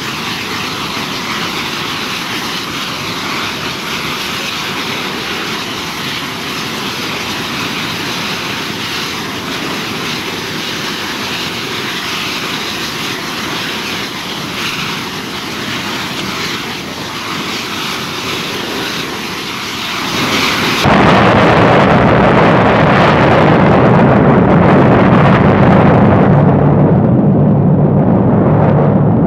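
Steady roar of a burning propane leak at an LPG tank. About 21 seconds in, the tank bursts in a BLEVE (boiling liquid expanding vapour explosion): a sudden, much louder and deeper roar of the fireball that keeps going and grows duller towards the end.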